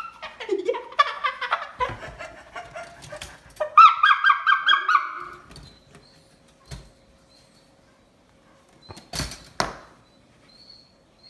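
A man's wordless yelling and high-pitched squealing for about five seconds. After it comes a single click, then a short, loud rustling clatter about nine seconds in.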